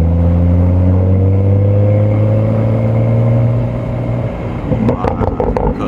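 BMW M235i's turbocharged N55 straight-six pulling under acceleration, its pitch rising steadily for about three and a half seconds, then dropping away as the throttle lifts. A few short clicks near the end.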